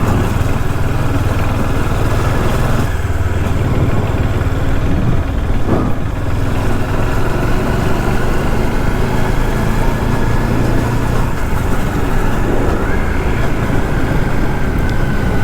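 Motorcycle engine running steadily while riding, with a constant noisy rush over it.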